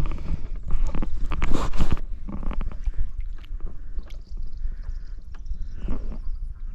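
Knocks and rustles from handling in a kayak, thickest in the first two seconds, over a steady low rumble of wind on the microphone.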